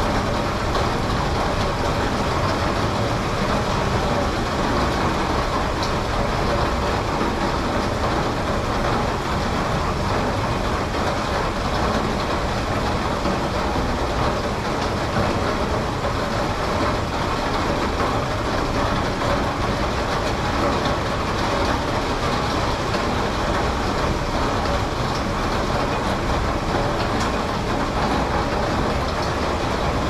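Heavy rain pouring steadily onto a paved car park and lawn, an even hiss with no thunder.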